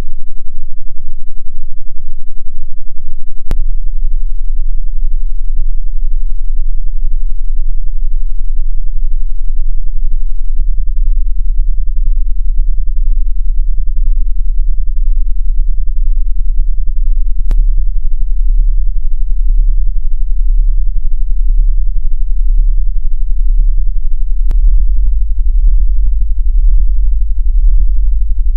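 A very deep electronic drone, almost all of it below about 100 Hz, hard to hear at low volume. It steps louder a few seconds in and again about a third of the way through, and wavers for a few seconds past the middle. A second, slightly higher deep tone joins near the end, with faint clicks at some of the changes.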